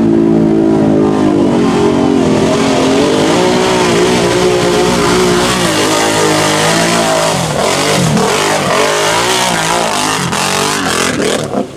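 ATV engine running hard at high revs as the quad plows through deep mud, then revving up and down as the rider works it against a steep dirt wall, with mud and water spraying. The sound falls off abruptly near the end.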